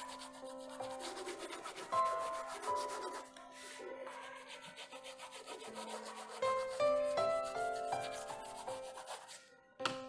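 Brown crayon rubbed back and forth on drawing paper in quick shading strokes: a rhythmic, scratchy rubbing, with soft background music underneath.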